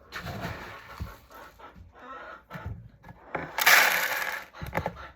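Dry chicken treat mix of mealworms, cracked corn, scratch and sunflower seeds rattling and rustling as it is handled and poured into a plastic container, with a louder pour about three and a half seconds in.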